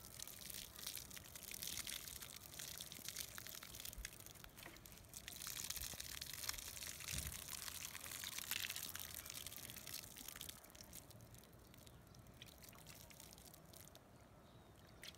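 Water pouring in a stream from a plastic watering can onto loose, bare soil, a steady splashing trickle. It dies away about ten seconds in.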